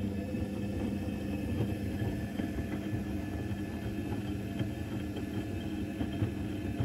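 Electrolux EWC1050 washing machine in the main wash of a 90 °C cotton cycle: towels tumbling in the turning drum over a steady hum, with small irregular knocks and swishes.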